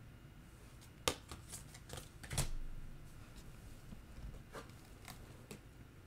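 Tarot cards being shuffled and handled: a few faint snaps and taps, the loudest about two and a half seconds in.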